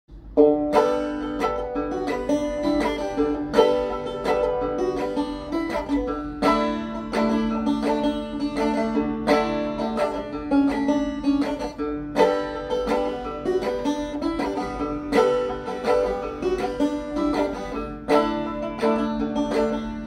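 Solo resonator banjo playing a tune: a quick, steady run of picked notes, starting about half a second in.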